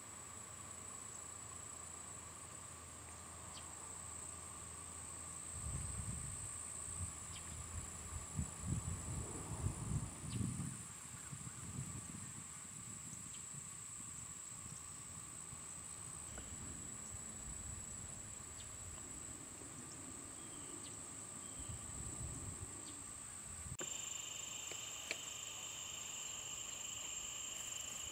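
Evening insects chirring steadily in a steady high-pitched chorus, with a few low rumbling bumps about six to eleven seconds in. Near the end the chorus changes abruptly and a second, lower steady insect tone joins.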